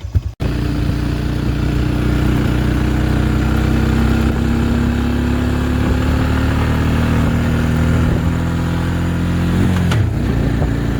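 Truck engine running under load while driving, a steady drone whose pitch climbs slowly for several seconds, then drops about ten seconds in.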